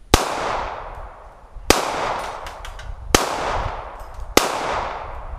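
Four shots from a Star BM 9mm pistol, about one and a half seconds apart, each followed by a long fading echo.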